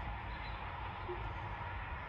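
Van cabin with the ignition on and the diesel engine not running: a faint steady low rumble and hiss, with no distinct events.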